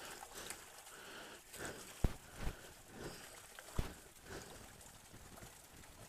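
Wet mud squelching and sucking, with a few soft thuds about two and four seconds in, as a shoe stuck deep in the mud is felt for and pulled at.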